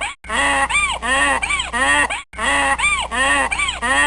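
Donkey braying, a loop of four rising-and-falling calls that breaks off briefly about a quarter second in and starts again identically about two seconds later.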